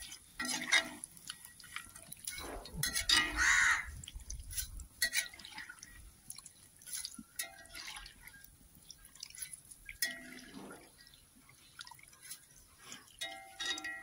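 Deep-fried masala peanuts being scooped out of the oil with a slotted steel ladle into a wire strainer: irregular clinks and scrapes of the ladle on the steel kadai, with oil dripping back into the pan. The loudest scrape comes about three and a half seconds in.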